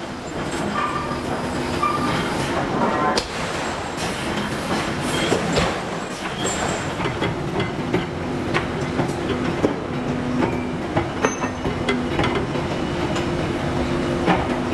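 Forge shop machinery running: a steady mechanical din with scattered metallic clanks and knocks, and a steady hum that comes in about eight seconds in.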